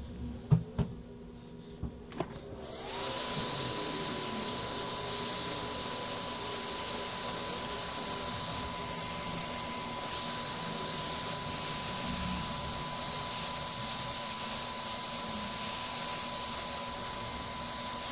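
A few light clicks, then about three seconds in a hot air rework station starts blowing: a steady airy hiss with a thin, even whine, as it heats the ECU board's solder joints.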